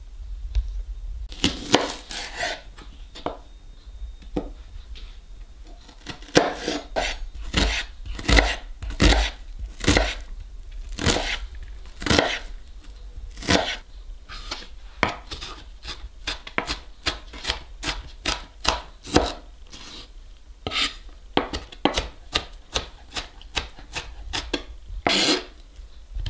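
Chef's knife chopping onion on a bamboo cutting board: a long run of sharp knocks of the blade on the wood, uneven, roughly one or two a second, with a few quicker flurries.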